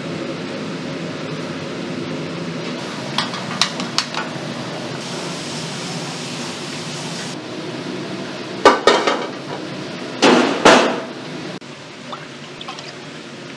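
Metal cookware and a ladle knocking and clattering: a few light clinks about three seconds in, then two loud clattering knocks near nine and eleven seconds in. Under them is a steady rushing hum, typical of the gas burner under the wok.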